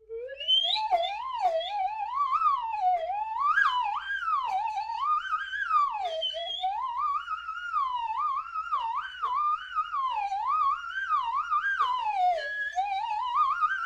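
Slide whistle played in quick, erratic glides, its single tone sliding up and down without pause.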